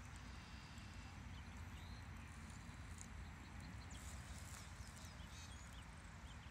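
Faint outdoor ambience: a low steady rumble with a few faint, high bird chirps and ticks.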